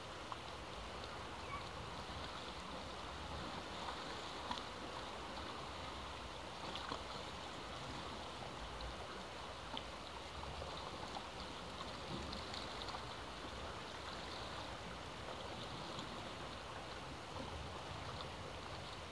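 Sea surf washing steadily, a continuous wash of water with small fizzing crackles and splashes through it.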